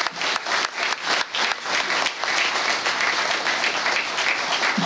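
Audience applauding: a hall full of people clapping, the separate claps plain at first and blending into a steady wash of applause after about two seconds.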